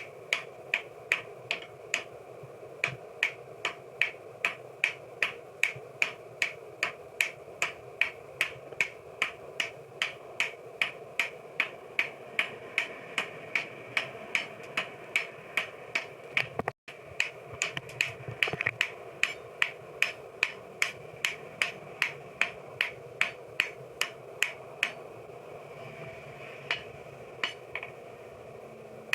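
Blacksmith's hammer striking hot steel on an anvil in a steady rhythm, about two ringing blows a second, thinning to a few scattered blows near the end. A steady hum runs underneath.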